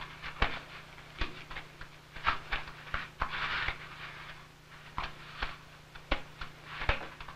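Lion cubs scuffling and batting at objects in a cage: scattered knocks, clicks and short scratchy scrapes at irregular intervals, over a steady low hum.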